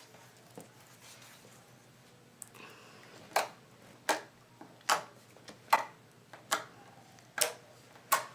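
Snow slime being squeezed and worked by hand, crunching in short sharp bursts about every 0.8 seconds, starting about three seconds in.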